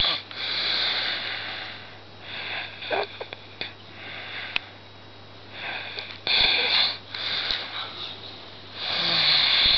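A sleeping person snoring loudly, a series of hissing, rasping breaths about every two to three seconds.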